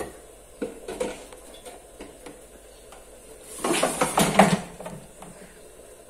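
Corn cobs set into an air fryer's plastic basket with light knocks, then the basket pushed shut into the fryer in a clattering slide about a second long, a little past halfway.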